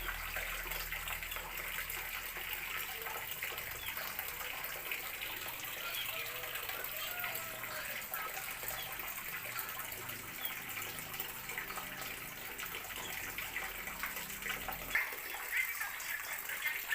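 Steady rushing noise like running water, with faint short chirps scattered through it. A low hum underneath drops away near the end.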